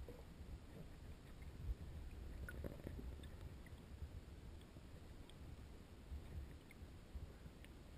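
Muffled low rumble of river water moving past a GoPro camera's waterproof housing held underwater, with a few faint scattered ticks.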